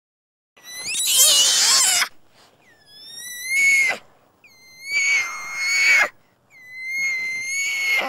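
Orangutan calling: four high-pitched calls about a second and a half each, about a second apart, each opening with a short dip in pitch and then holding steady over a rasping, breathy noise. The first call is the loudest and roughest.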